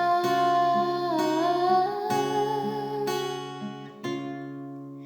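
Slow acoustic guitar accompaniment to a sung hymn, chords returning about once a second, with a held sung note trailing over the first second or so and bending in pitch; the music fades near the end.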